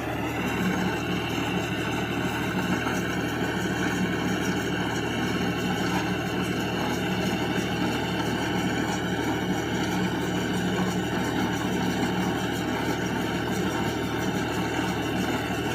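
Tractor engine running steadily while powering a baler, a constant even drone with no changes in speed.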